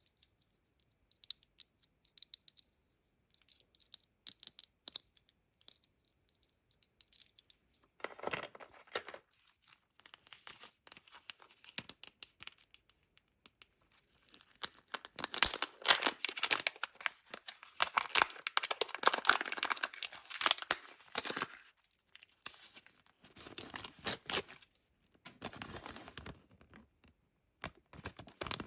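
Kinder Joy egg packaging handled by hand: a few light plastic clicks and taps, then the wrappers being torn open and crinkled in several bouts, the longest and loudest in the middle.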